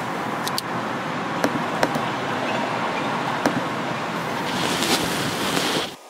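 Scattered computer keyboard and mouse clicks over a steady rushing background noise, which cuts off abruptly near the end.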